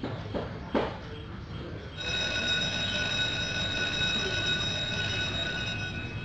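A few short bird calls, then about two seconds in a twin-bell alarm clock starts ringing, a steady bright ring that stops near the end as a hand comes down on the clock.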